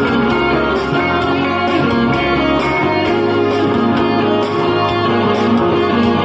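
Electric guitar playing a tune, with a steady beat and a bass line underneath, like a backing track.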